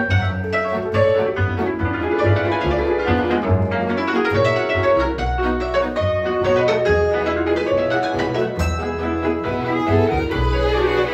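Hungarian string band playing: two violins and a viola bowing the tune and chords over double bass notes, with the hammered cimbalom struck throughout.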